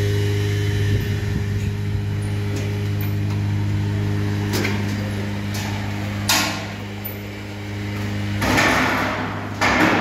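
Steady low hum from a stainless-steel bulk milk cooling tank's motor, with several metal clanks and knocks from the tank and its lid, the loudest about six seconds in and near the end.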